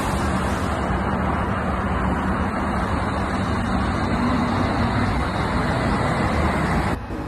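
London Underground train pulling out of the platform, a steady running noise as it gathers speed, dropping away abruptly near the end.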